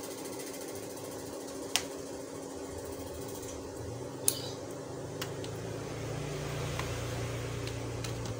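A few sharp clicks from a pry tool working the plastic edge of a laptop's keyboard panel, the loudest about four seconds in, over a steady hum.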